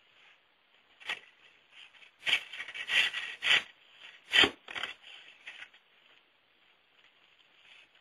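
Snow crunching in a run of short, scratchy crunches: one about a second in, then a dense cluster with the loudest crunch a little past halfway, thinning out well before the end.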